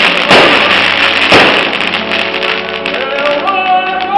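Fireworks shells bursting, two loud bangs about a second apart, each followed by a crackling hiss that dies away. Music with held notes comes up near the end.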